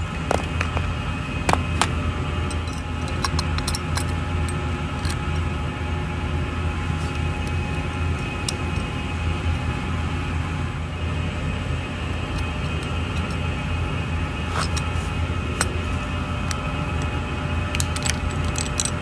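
Steady machinery hum with a low drone and several constant tones, over which light metal clicks and clinks come now and then, clustered in the first few seconds and again near the end, as the steel linkage clamp and its U-bolt nuts are handled on a damper actuator.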